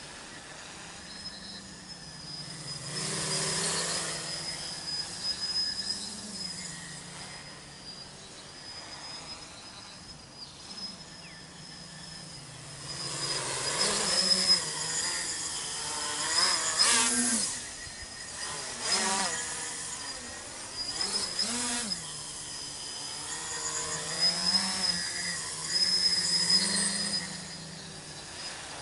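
Tricopter's brushless motors (2216-11, 900 kV) with 8x4.5 carbon-fibre propellers buzzing in flight. The pitch rises and falls with the throttle, with louder surges about 3 seconds in and several times over the second half.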